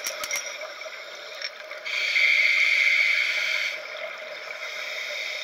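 Scuba regulator hissing as a diver breathes in, one steady hiss of just under two seconds starting about two seconds in, heard underwater over a low steady background.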